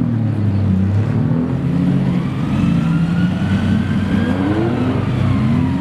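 Road traffic: vehicle engines running and pulling away, their pitch rising and falling, with one engine revving up about four seconds in.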